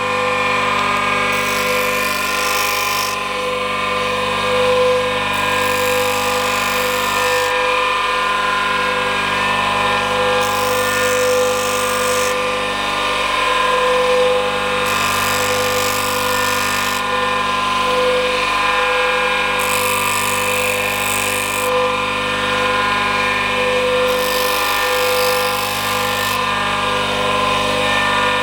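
Elko B150 electric saw-chain grinder running with a steady motor hum while its grinding wheel is brought down on the chain's depth-gauge (raker) teeth about every four to five seconds, each pass a hissing grind of one to two seconds.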